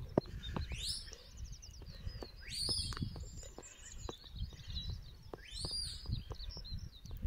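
Rural field ambience: wind rumbling on the microphone, with birdsong and three high whistles that each rise and then fall in pitch.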